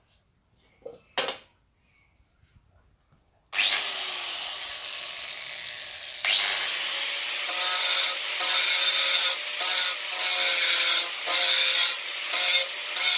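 A sharp knock about a second in, then an angle grinder spins up about three and a half seconds in and runs with a steady high whine. From about six seconds in its disc grinds into a ceramic floor tile, the grinding rising and falling in short repeated passes.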